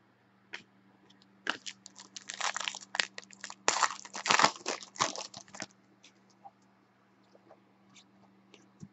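A trading-card pack wrapper being torn open and crinkled by hand: a dense crackling run of about four seconds starting about a second and a half in, followed by a few faint clicks.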